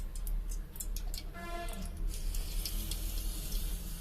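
Cooking oil being handled and poured into a pan for frying: a few sharp clicks and knocks, then a steady hiss from about halfway.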